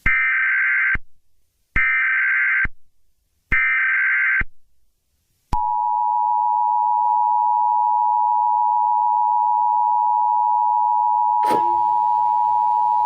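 Emergency Alert System broadcast: three short bursts of the warbling SAME data header, about a second each, then the steady two-tone EAS attention signal held without a break. A click and a low hiss of static come in under the tone near the end.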